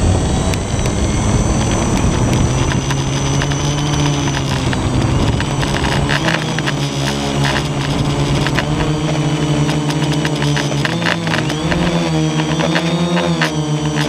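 Quadcopter drone's electric motors and propellers running, heard close up from a camera mounted on the drone, as it sits on the ground and then lifts off. A steady buzzing hum whose pitch wavers up and down near the end as the throttle changes, over a low rushing noise that eases about halfway through.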